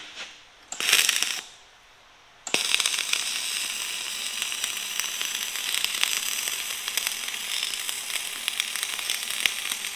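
A short burst of noise about a second in. From about two and a half seconds, a dual-shield (gas-shielded flux-core) MIG welding arc runs steadily with a continuous crackle of spatter.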